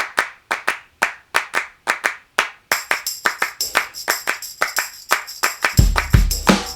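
Background music building up: a rhythm of sharp hand claps, joined about a third of the way in by a fast, steady tambourine-like high percussion, and near the end by a deep kick drum.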